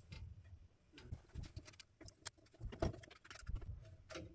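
Faint, irregular small clicks, taps and rustles of hands handling an old wall switch, its wires and a metal electrical junction box.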